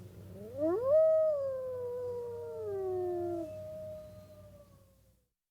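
Wolves howling. One long howl rises steeply in the first second, then slowly sinks. A second howl joins about two seconds in, holds a steady pitch and fades out near the end.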